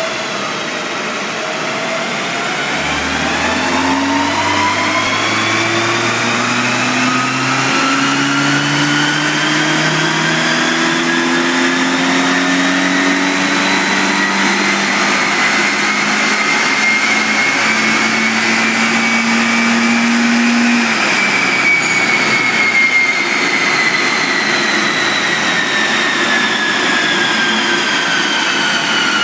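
2012 Mazda MX-5's four-cylinder engine pulled slowly up through its revs on a chassis dynamometer, with a whine that climbs steadily in pitch. About twenty seconds in the engine is let off, and the whine slowly falls as the rollers coast down.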